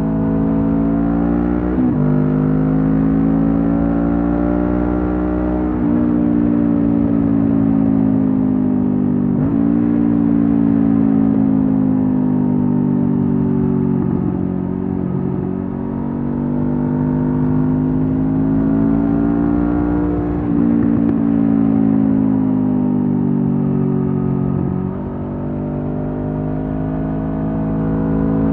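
Honda CB500F's parallel-twin engine through a Mivv GP Pro aftermarket exhaust, under way: the note climbs with throttle, drops sharply at each of several gear changes, and falls away when the rider eases off.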